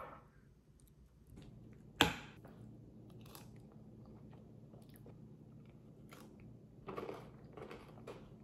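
Close-up chewing and crunching of a spoonful of yogurt topped with crushed crunchy bits, with a sharp click about two seconds in and softer crunches later.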